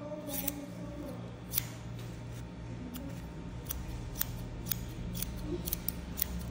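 Barber's hair-cutting shears snipping hair held out over a comb: about a dozen crisp snips, a few spread out at first, then coming about twice a second in the second half, over a steady low hum.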